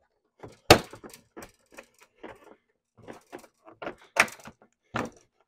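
Plastic clips of a Subaru Legacy's front bumper cover snapping loose as the bumper is pulled free by hand under the headlamp: a string of sharp plastic clicks and clacks, three of them much louder than the rest.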